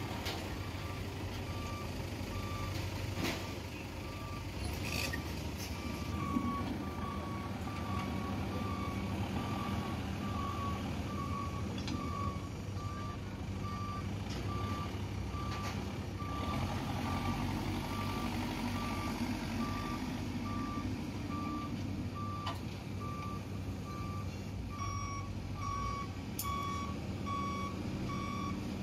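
Backhoe loader's reversing alarm giving regular beeps, a little under a second apart, over its diesel engine running steadily as the machine backs up.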